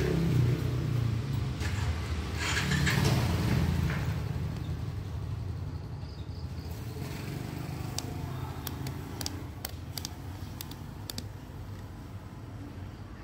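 Low rumble of passing traffic that swells twice and fades, then a handful of sharp small clicks from the plastic parts of a disassembled cordless drill being handled.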